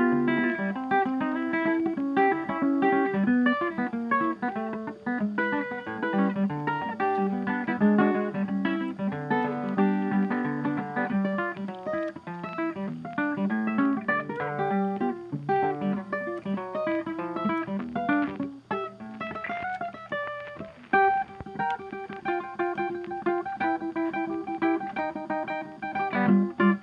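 Background music: plucked acoustic guitar playing a quick run of picked notes.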